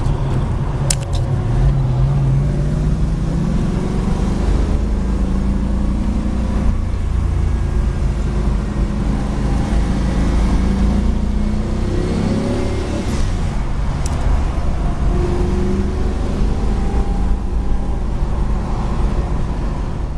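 Classic American muscle car's engine heard from inside the cabin while driving, running steadily and revving up in pitch about a second in and again around twelve seconds in. Two sharp clicks sound, one near the start and one in the middle.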